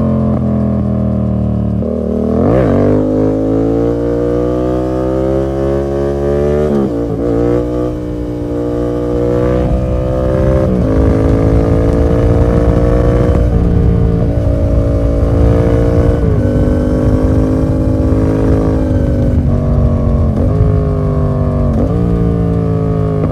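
Yamaha MT-07's 689 cc parallel-twin engine running through an open SC Project full exhaust with the dB killer removed, riding along under load. The revs climb slowly and drop back sharply several times, as at gear changes.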